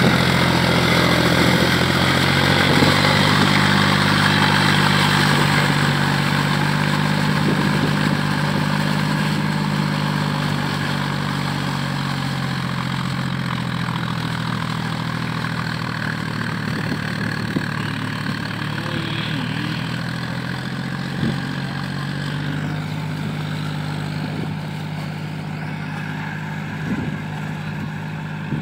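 Tractor diesel engine running steadily under load as it drags cage wheels and a puddling implement through a flooded paddy field, its note slowly fading as it moves away.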